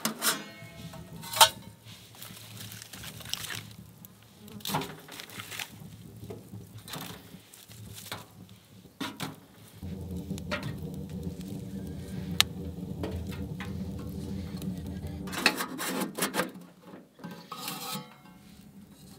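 Metal clanks and knocks of a small steel wood stove's round firebox door being opened and later shut, the sharpest clank about a second and a half in and a cluster of knocks near the end. Between them, the wood fire in the firebox crackles.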